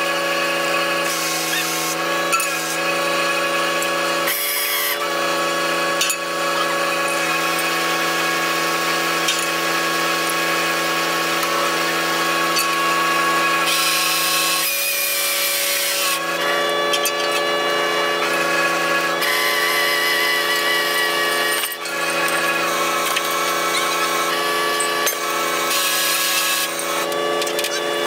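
A salmon purse seiner's deck machinery running with a steady, even whine of several tones while the seine net is worked aboard.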